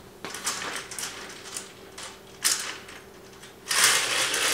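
Vertical blinds being pulled open by hand: the slats clack and rattle against each other as they slide along the track, with scattered clicks at first and a louder, continuous clattering starting near the end.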